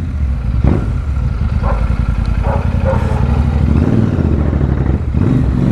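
Royal Enfield Super Meteor 650's parallel-twin engine running steadily at low speed as the motorcycle is ridden slowly.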